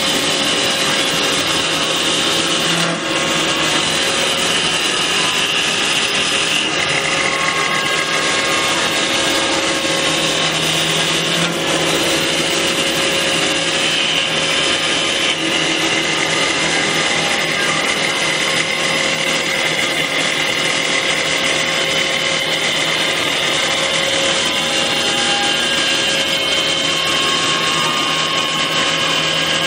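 Tianjiao automatic CNC wood lathe turning a wooden sofa leg. The machine runs steadily with several held whining tones over the rough noise of the cutter shaving the spinning wood.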